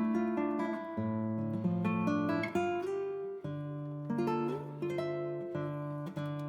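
Background music: acoustic guitar, plucked and strummed, changing chords.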